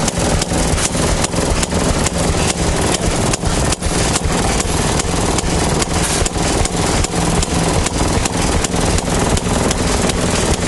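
1926 Maytag washing machine's one-horsepower two-stroke gasoline engine running steadily, its exhaust popping at an even beat of about five a second.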